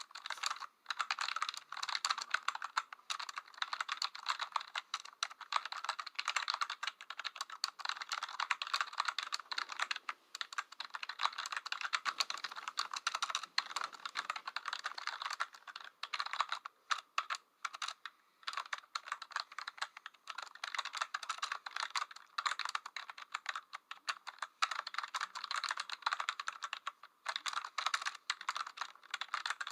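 Dense, rapid clicking and clattering of small hard objects being shaken, with short breaks in the clatter.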